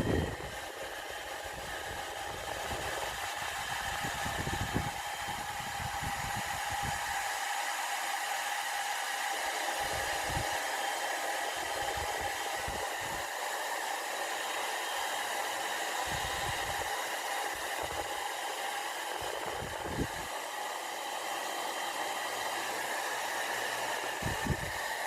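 Sharp IB-WX1 hair dryer running steadily on hot air at high airflow: a rush of air with a motor whine, broken now and then by low rumbles of air buffeting.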